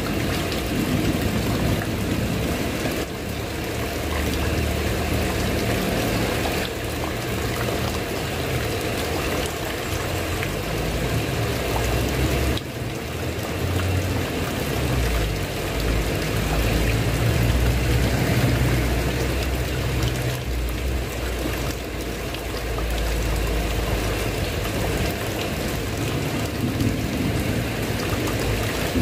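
Steady heavy rain falling on a tile roof and running off its edge, with a low rumble swelling and fading underneath.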